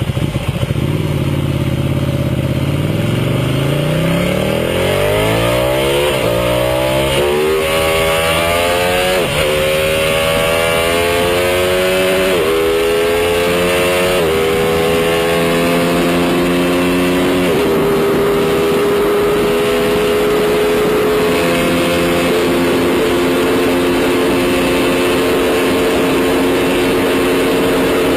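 Ducati 1199 Panigale R's V-twin engine accelerating hard from a standstill. It climbs in pitch through each gear, with a sudden drop at every upshift, about five shifts up to sixth gear, then settles into a steady drone at high speed that rises slowly.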